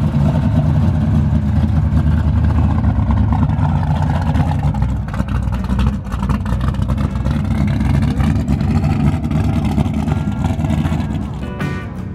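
A muscle car's engine running with a loud, deep, steady rumble as the car drives slowly away. Music comes in near the end.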